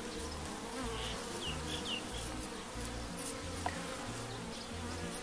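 Honeybees buzzing steadily around an open hive, stirred up as they are brushed off a capped honey frame with a bee brush.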